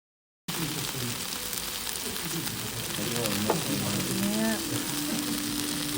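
Ankake yakisoba sizzling on a hot iron teppan plate, its thick sauce bubbling and crackling in a dense, steady hiss that starts about half a second in.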